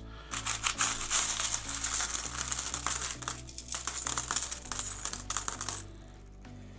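Loose metal coins clinking and jingling against each other in a rapid, dense run as a hand sorts through a tub of mixed world coins; the clinking stops a little before six seconds in.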